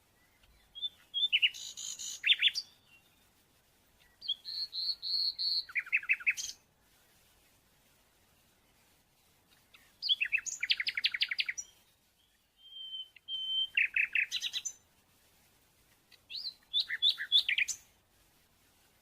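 A songbird singing in five separate phrases, each a quick series of sharp chirps and trills lasting a second or two, with short pauses between them.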